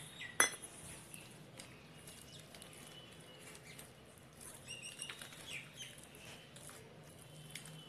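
A spoon clicks sharply against a glass once, then a spatula and fork scrape and tap softly as they stir thick cake batter in the glass.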